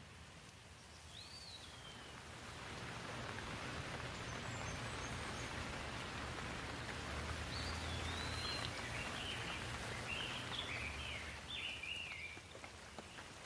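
Rain falling, its hiss swelling to a steady rush over the first few seconds and easing off near the end. Birds chirp now and then above it, once early and several times in the second half.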